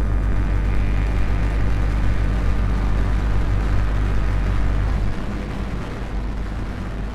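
Lumanoise v4 noise instrument playing a dense, rumbling noise drone with a heavy bass, through delay and plate reverb. A faint tone glides slowly downward across it, and the deep bass thins out about five seconds in.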